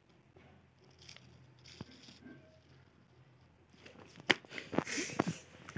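Faint and quiet at first, then from about four seconds in a run of sharp crackles and rustling.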